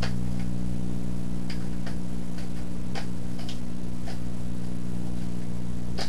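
Light plastic clicks and taps as a smoke detector head is twisted and snapped into its mounting base, a few faint clicks spread over the seconds, over a steady low electrical hum that is the loudest thing throughout.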